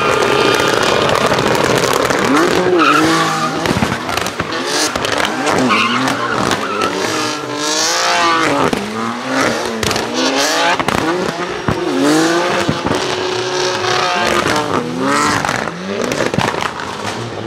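Drift car's engine revving up and down over and over under hard throttle, with the tyres squealing through a slide. The engine note holds steady for a couple of seconds about three-quarters of the way through.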